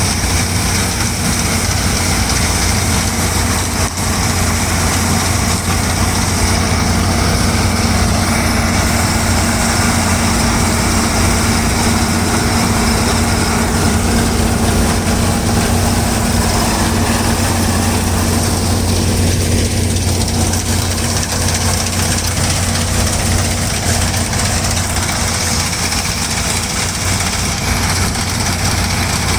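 New Holland TC5.30 combine harvester running steadily, a loud constant engine and machinery drone with an unchanging low hum.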